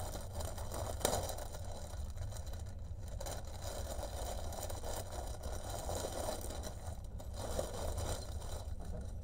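Crinkly clear plastic bag crackling and rustling as it is handled and torn open, and the plastic-wrapped diamond painting kits inside are slid out. A low steady hum runs underneath.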